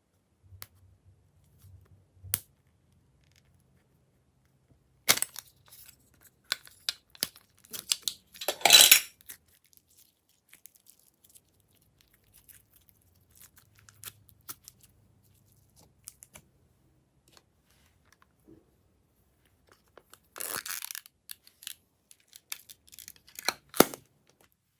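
Glossy slime being mixed and worked by hand: scattered sticky clicks and crackles, with louder squelching, tearing bursts about five seconds in, around nine seconds in (the loudest), and again near twenty and twenty-four seconds in.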